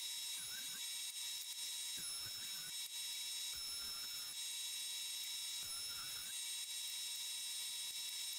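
Grizzly jointer-planer running steadily as a board is fed across it: an even high whine and hiss, with faint low knocks every second or two.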